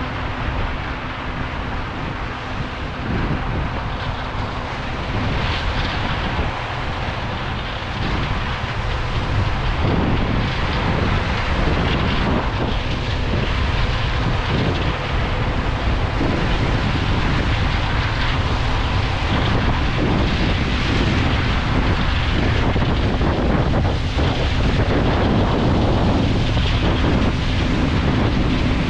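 Combine harvester running steadily at harvesting load, a continuous mechanical drone with a deep rumble underneath; it grows louder about eight seconds in and then holds steady.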